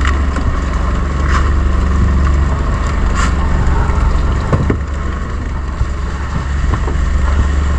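Boat engine running steadily with a loud low hum, while a few short knocks come from crates and gear being handled on the deck.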